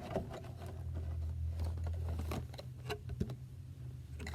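Scattered light clicks and rustles of a Funko Pop box and its plastic packaging being handled, over a steady low hum.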